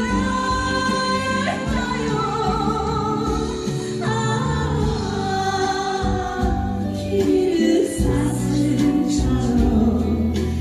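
A woman singing a slow Korean song with long held notes over instrumental accompaniment with a bass line.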